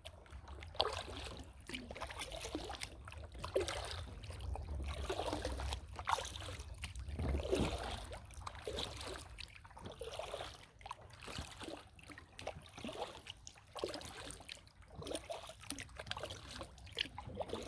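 Paddle strokes splashing and dripping in river water, one irregular stroke after another, with a low rumble underneath that is strongest in the middle.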